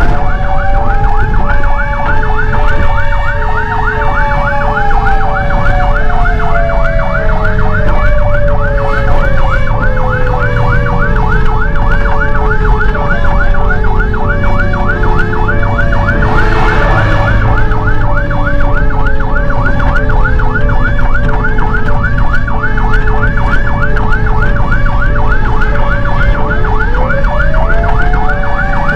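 Fire engine sirens wailing together during an emergency response run: a fast warbling yelp over an alternating two-tone hi-lo. A third tone winds up to a peak about four seconds in, slowly falls away over the next twenty seconds, and rises again near the end. A low engine rumble runs underneath, and there is a short burst of noise about seventeen seconds in.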